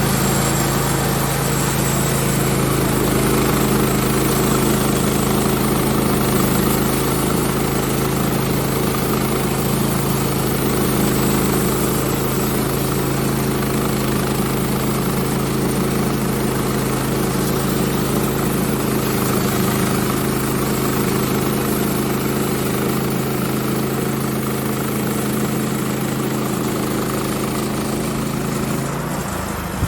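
Small gasoline engine of a Woodland Mills HM126 portable band sawmill running steadily at speed while the band blade cuts through a cedar log. Near the end the engine note drops and the sound gets quieter.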